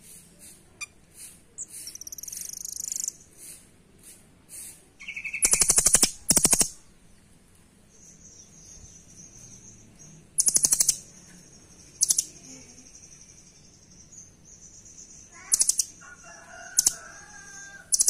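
Caged rambatan doraemon songbird singing: short high chirps, a thin high whistle held for several seconds and warbling notes near the end. These are broken by about seven loud, short bursts of very fast rattling pulses.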